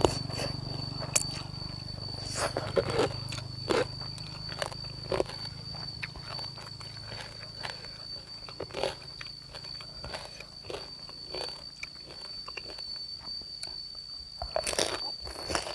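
Close-up eating sounds: wet chewing, smacking and slurping of rice noodles in fermented-fish broth, with a denser run of crunchy bites into crispy pork belly near the end. A steady high-pitched tone runs underneath.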